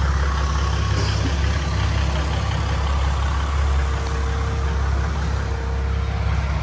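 Vehicle engine running steadily, a low hum.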